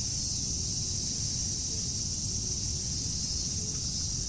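Cicadas in a steady, unbroken night chorus, a shrill high hiss-like drone over a low, steady rumble.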